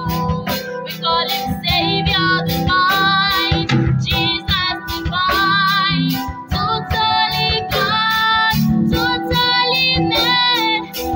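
A woman singing a slow song with wavering vibrato on held notes, over recorded backing music with a steady beat.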